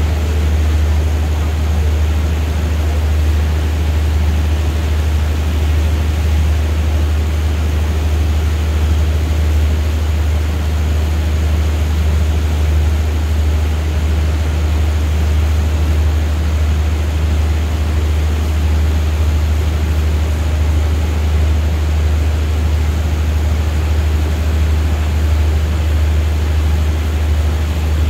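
A State Railway of Thailand express passenger train standing at the platform with its diesel engines idling: a steady, loud, low drone that does not change in pitch or level.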